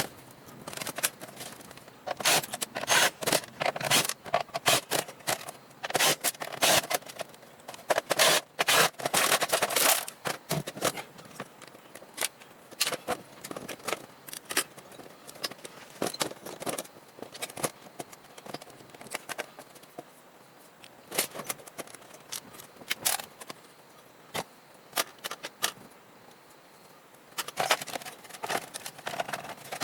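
Desktop computer tower being taken apart by hand: a rapid clatter of clicks, knocks and scrapes from metal panels, screws and plastic parts. Dense at first, sparser through the middle, and busy again near the end.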